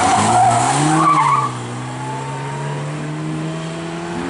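Moskvich rally car sliding through a gravel bend, its tyres scrabbling and skidding on the loose surface for about the first second and a half. Its engine then pulls hard away, the note climbing steadily as it accelerates.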